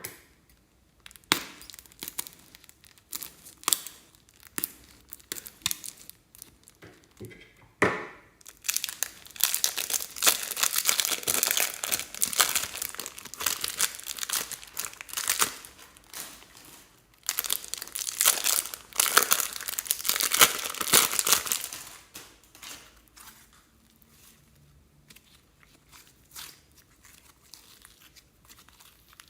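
Plastic piping bags crinkling and crackling as they are handled and squeezed: scattered crackles at first, then two long stretches of dense crinkling, fading to a few faint clicks near the end.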